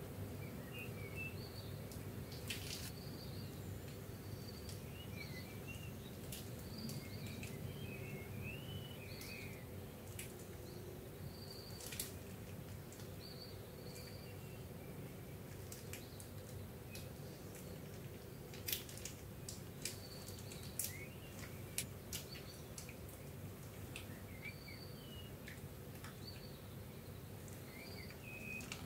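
Birds chirping faintly over a steady low hum, with a few sharp clicks scattered through, most of them in the second half.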